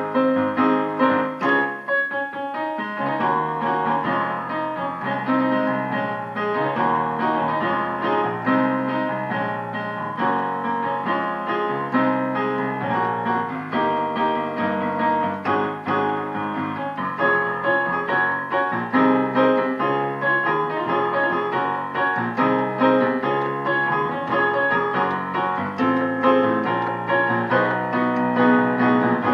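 Piano or keyboard playing gospel chord progressions in D flat, struck chords with a running melody.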